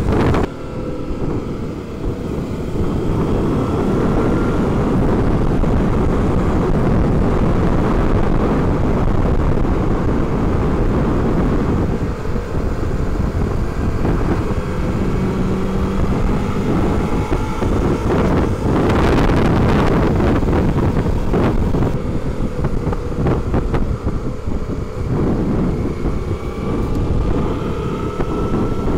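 Wind rushing over the microphone of a helmet camera on a moving motorcycle, with the bike's drive note faintly audible, its pitch slowly rising and falling. There are sudden shifts in the sound about a third of a second in and around 12 and 22 seconds, where the footage jumps.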